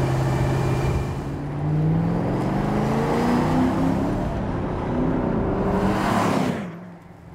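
2006 Ford GT's 5.4-litre supercharged V8 running steadily, then revving up with its pitch climbing. It sweeps past with a falling pitch about six seconds in, and the sound drops away quickly near the end.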